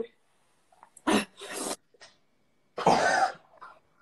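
A person coughing and gagging after drinking a foul, very salty iced-tea mixture: three harsh bursts, the longest and loudest about three seconds in.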